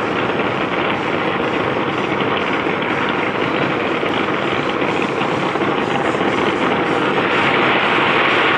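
A fireworks display going off in rapid, dense succession, the bangs and crackles running together into a continuous rumble that swells slightly near the end.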